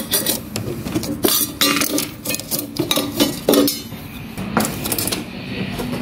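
Irregular clinks, clicks and knocks of hand tools and small metal and plastic parts as an electrical fitting is worked loose from a refrigerator compressor.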